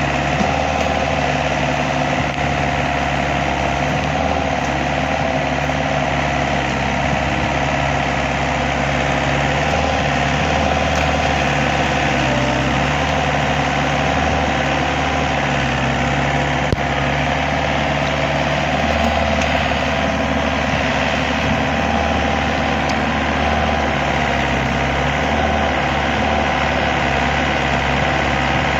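An engine running steadily at a constant speed, its hum unchanging throughout, with a single short click about two-thirds of the way through.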